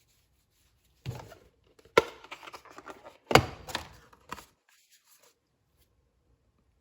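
Ratchet packaging being handled: rustling with several sharp taps and knocks, the loudest about two and three and a half seconds in.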